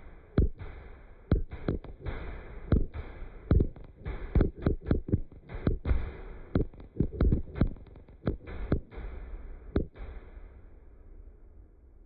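Fireworks bursting overhead: a rapid, irregular string of about two dozen booms over a low rumble, densest in the middle, with the last boom near the ten-second mark.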